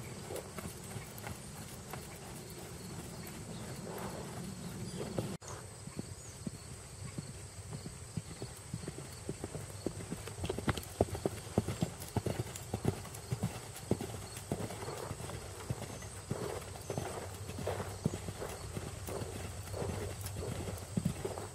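Hoofbeats of an Irish Sport Horse mare under saddle, mostly cantering on gravelly arena footing: a steady repeating rhythm of hoof strikes. The beats grow louder and sharper from about halfway through.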